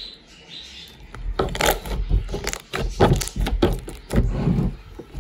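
Wet slime being kneaded, stretched and pressed against a tabletop by hand, making a quick irregular run of sticky squelches and small pops from about a second in until near the end. The slime is stiff slime being softened by working hot water into it.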